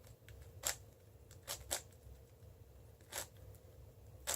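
Magnetized 5x5 speedcube being turned by hand: a handful of short, sharp plastic clicks as layers are turned, spaced unevenly while the first center is built.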